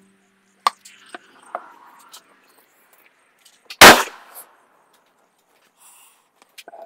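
A few sharp clicks and knocks of handling, then a single loud gunshot about four seconds in, ringing off over about half a second.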